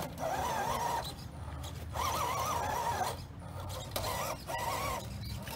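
Electric drive of an RC rock crawler whining in short stop-start bursts, the pitch wavering as the throttle is feathered. There are four bursts.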